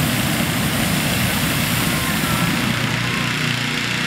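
Hot-air balloon propane burner firing: a steady, loud rush of noise that eases slightly about three seconds in, with crowd chatter underneath.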